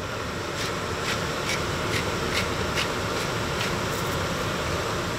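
A steady hiss with a run of about eight light, evenly spaced clicks, a little over two a second, that stops about three and a half seconds in.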